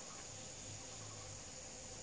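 Faint, steady, high-pitched chorus of insects, unchanging throughout.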